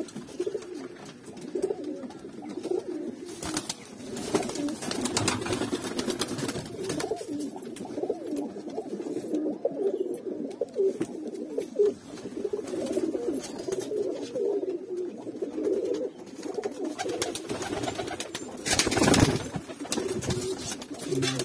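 Several domestic high-flyer pigeons cooing, a dense, continuous overlap of low coos. Near the end a brief, louder burst of noise cuts across the cooing.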